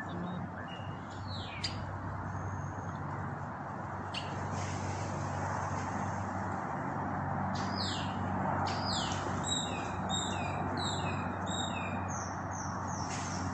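A quick run of short, high, downward-sweeping chirps and squeaks starts about halfway through and repeats rapidly until near the end. A steady low hum of outdoor background noise runs underneath.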